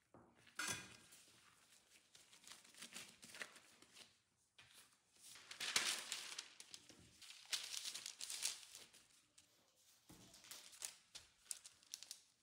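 A sheet of baking paper rustling and crinkling as it is spread out and smoothed on a countertop, loudest in the middle. A sharp knock comes about half a second in, and small handling clicks near the end.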